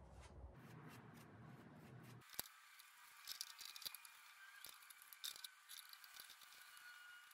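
Faint scratchy rustling and small clicks of a plastic-gloved finger pressing and smearing wood filler onto a thin wooden trim strip, with one sharp click about two and a half seconds in; before that, only a low hum.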